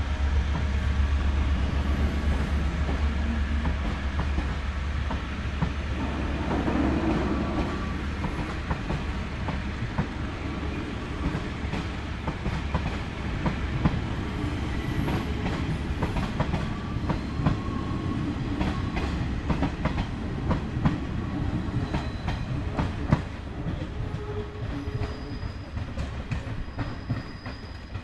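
Taiwan Railway luggage and parcel train pulling out, its wagons rolling past with a heavy low rumble for the first several seconds. Then comes a long run of clickety-clack as the wheels cross rail joints and points, growing quieter as the last car draws away.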